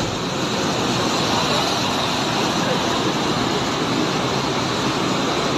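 Flood-swollen Parvati River rushing in spate after a cloudburst: a loud, steady, even rush of torrential water.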